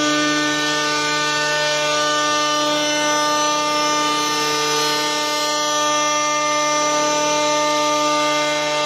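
Electric router spindles of a CNC wood lathe running with a steady whine of several tones, their cutters carving spiral twists into two wooden blanks, with the even hiss of wood being cut.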